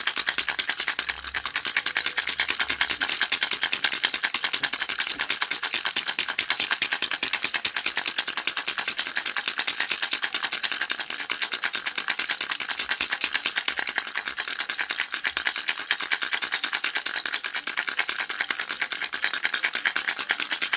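Baby rattle shaken rapidly and steadily without a pause, a fast even stream of small clicking rattles.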